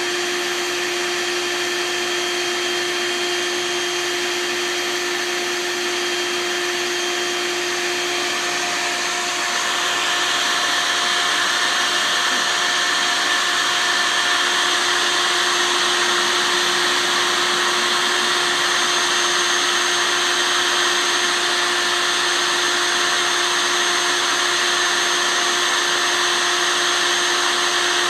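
Bee vacuum running steadily with a whine and rushing air, drawing a live honeybee swarm off a tree. About ten seconds in it gets louder and hissier.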